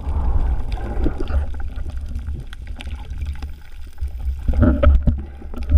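Water rushing against an underwater camera housing as a freediver swims: a low rumble with scattered clicks and knocks, louder about four and a half seconds in. Background music fades out in the first second.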